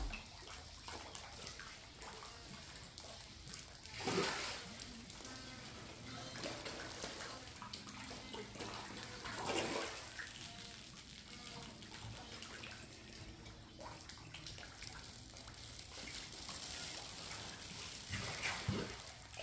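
Catfish splashing and gulping at the lake surface as they take floating feed pellets, with steady small water noise and a few louder splashes: about four seconds in, around the middle, and near the end.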